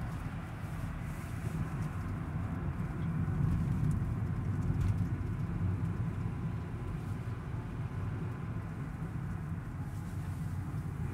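Steady low rumble of a car driving, engine and tyres on the road heard from inside the cabin.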